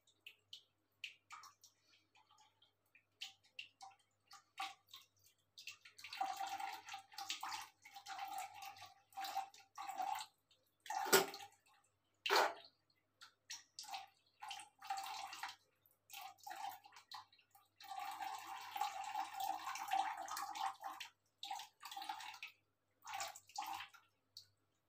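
Cats lapping water from a plastic bucket: on-and-off bursts of quick wet lapping and small splashes, with two sharper knocks about halfway through.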